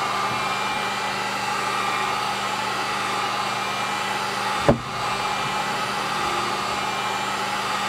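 Electric heat gun running steadily, its fan blowing hot air with a constant low hum. A single short thump a little past halfway is the loudest moment.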